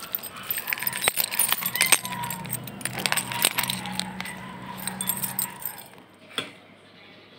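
Handling noise: a plastic shopping bag being crinkled, with dense sharp clicks and light metallic jingling, dying away after about six seconds.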